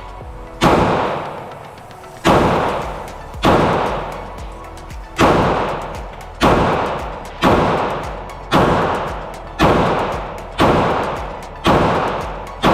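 Glock 48 9mm pistol firing slow single shots, about ten in a row roughly a second apart, each ringing out with a long echo before the next.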